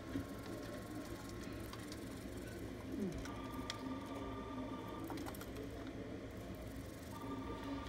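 Telephone ringing twice, each ring a steady electronic two-tone sound lasting about two seconds, over a steady low hum.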